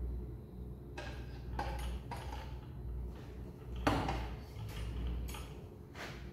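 Several metal clunks and knocks as a Land Rover Series 2A gearbox hanging from an engine crane's chains is worked into position against the engine. The loudest knock comes about four seconds in, over a steady low hum.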